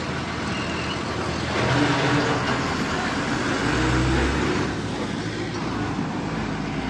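Bus engine running, its note swelling louder from about a second and a half in until nearly five seconds, with a slight rise in pitch as it revs, over steady road traffic noise.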